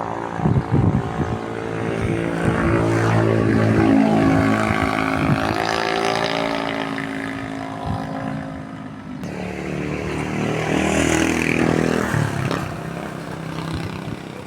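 A small engine running as it passes close by, its pitch sliding as it comes nearer and draws away. The sound breaks off abruptly about nine seconds in, and a second engine pass swells up again soon after.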